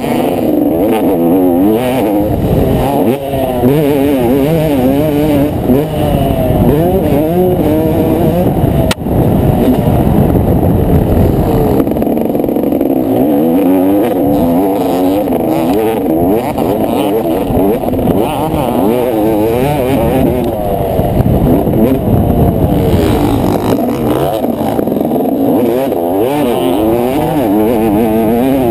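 Motocross bike engine at race pace, its pitch climbing and dropping again and again as the throttle is worked and gears change through turns and straights, with a sharp knock about nine seconds in.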